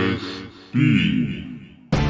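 A deep voice making two short vocal sounds, the second rising and falling in pitch. Music starts just before the end.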